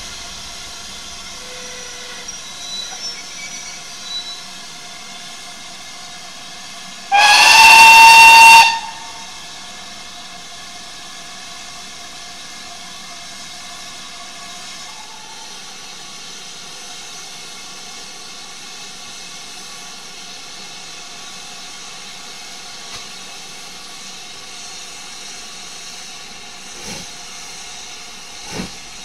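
BR Standard Class 5 steam locomotive 73156 sounding its whistle once, a loud blast of about a second and a half, about seven seconds in. Under it, a steady hiss of steam escaping from the engine.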